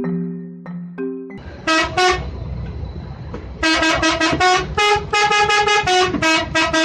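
A short chime-like jingle ends about a second in. Then an Indonesian 'telolet' bus horn, a multi-trumpet musical air horn, gives two short toots, and from about three and a half seconds in a rapid run of short toots at two or three pitches, over a low rumbling noise.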